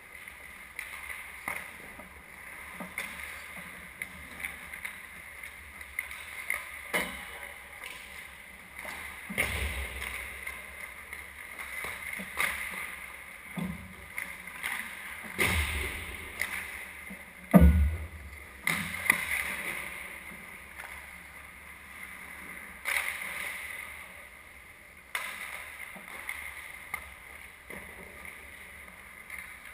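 Ice hockey play: skate blades scraping and carving the ice, with frequent clacks of sticks and puck and several heavy thumps, the loudest about 18 seconds in.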